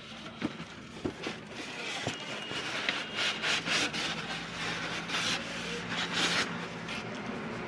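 Polystyrene foam packing blocks and cardboard carton flaps rubbing and scraping against each other as a boxed unit is slid out of its box. A few light knocks come in the first two seconds, and the scraping comes in repeated strokes from about three seconds in.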